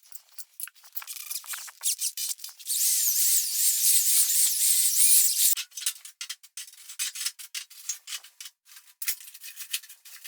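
Scraping and rubbing as spilled refractory mortar is gathered up: short scrapes and clicks, then a harsher continuous scrape from about three to five and a half seconds in, then scattered light scrapes again.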